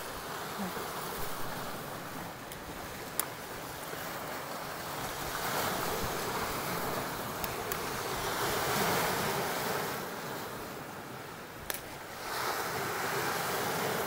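Sea surf washing on the shore in a strong wind: a steady rushing that swells louder through the middle and again near the end, with a few faint clicks.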